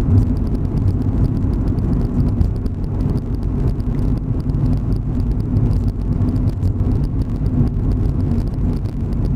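Steady engine and road noise inside a moving motorhome: a low rumble with a faint steady hum under it.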